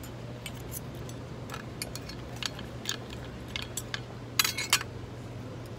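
Metal cutlery clinking and scraping on ceramic plates, with scattered light clicks and a louder cluster of ringing clinks about four and a half seconds in. A steady low hum runs underneath.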